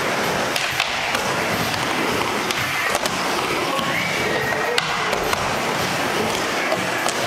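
Skateboard wheels rolling steadily over a smooth wooden indoor ramp surface, with a few light clacks from the board.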